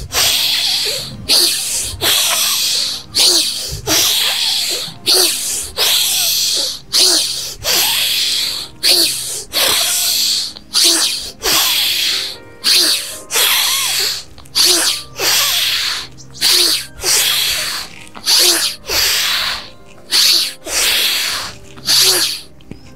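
A man's forceful yoga breaths: sharp hissing rushes of air in a steady rhythm of about one a second, timed to repeated bends down to the floor and back up. They stop just before the end.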